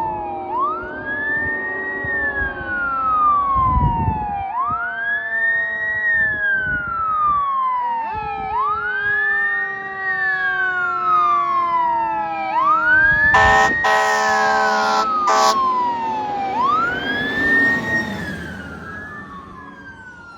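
Fire apparatus siren on wail, rising quickly and falling slowly in a cycle of about four seconds, with a lower siren tone sliding slowly down underneath. A little past halfway an air horn blasts twice in quick succession, the loudest sound, before the siren fades as the apparatus moves off.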